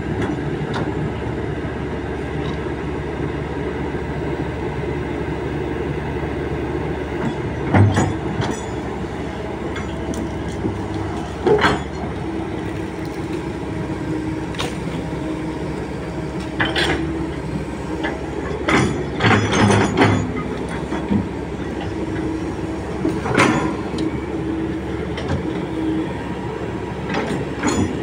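Kobelco SK200 hydraulic excavator's diesel engine running steadily while it digs, with a steady whine through the middle stretch. Sharp knocks and clanks come at irregular moments as the bucket works, several in quick succession about two-thirds of the way in.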